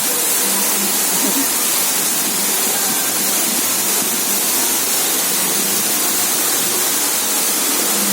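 Waterfall rushing with a steady, loud roar of falling water.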